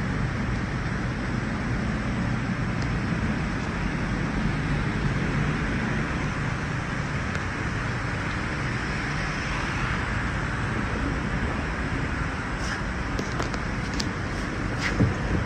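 Steady low mechanical hum under a wash of background noise, with a few faint clicks near the end.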